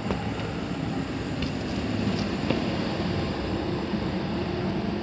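Old HVAC air handler running, its blower giving a steady rushing hum, with a few faint clicks. The inspector believes it is leaking air.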